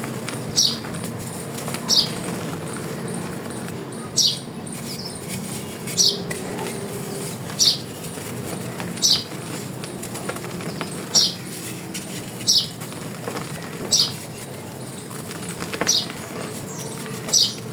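Dry chalk being crushed and crumbled, with fine crackling throughout. A short, high chirp-like sound repeats about every second and a half over it.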